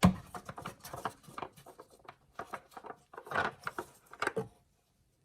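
A sharp knock, then a run of irregular light clicks, taps and scrapes for about four seconds as hands and tools work at opening a fill cap on the car, stopping near the end.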